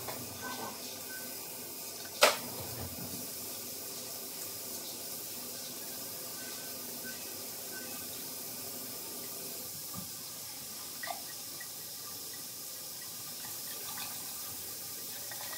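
Bathroom sink tap running steadily into the basin, with one sharp click about two seconds in.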